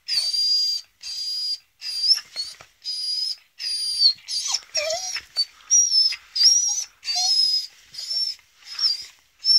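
Adult female beagle whining in a steady run of short, high-pitched whines, about one and a half a second, with a couple of lower, shorter sounds near the middle. She is agitated at being teased.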